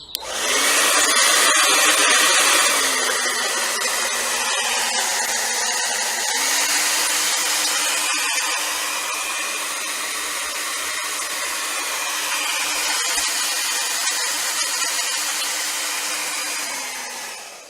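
Hairdryer running, a steady rush of air over a motor hum, as it blows hot air onto a rubber lip spoiler's adhesive strip to warm it before fitting. It switches on at the start and cuts off near the end.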